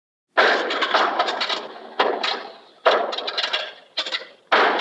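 Studio audience reacting in confusion: short clips of many people murmuring at once, each starting abruptly and fading away, played one after another.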